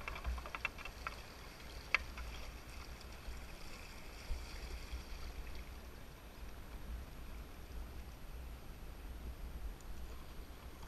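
A canoe moving through a shallow, rocky river riffle: water rushing and splashing around the hull over a low steady rumble. A few sharp knocks come in the first two seconds, the loudest about two seconds in, and one more about four seconds in.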